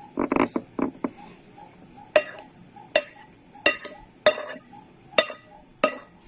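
Cutlery scraping briefly across a dish of fried rice, then striking the dish six times with sharp, briefly ringing clinks as food is scooped up.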